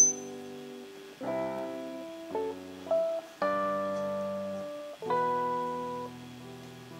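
Slow, soft instrumental music: chords struck one at a time and left to ring and fade, a new chord every second or so. It opens with a brief high-pitched squeal.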